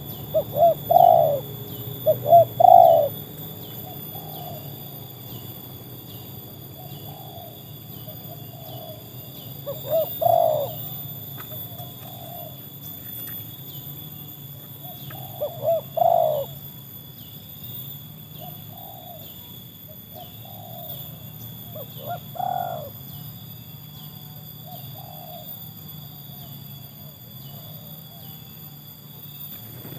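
Spotted doves cooing: a near, loud dove gives four phrases of several coos each, with fainter coos from other doves in between. A steady, rapidly pulsing high chirp runs underneath.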